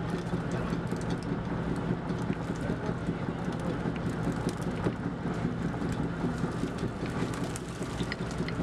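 Fishing boat's engine running steadily, under a dense crackling patter of small wet clicks from a netful of ribbonfish flapping and sliding on the deck as the net is opened.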